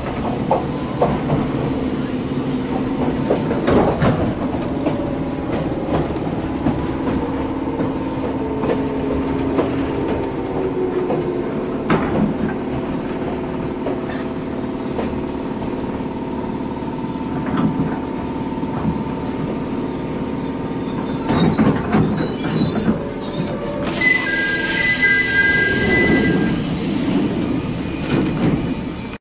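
An ex-Keio Inokashira Line electric train on the Jōmō Electric Railway, heard from inside the car: a steady motor and gear hum with wheel clicks over rail joints, and a whine that falls as the train slows. Near the end a high, steady squeal comes in as it stops at a station.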